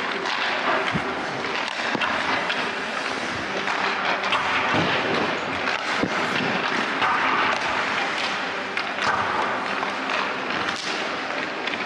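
Ice hockey warmup: skate blades scraping the ice, sticks and pucks clacking, and scattered sharp knocks of pucks against the boards over a steady rink din.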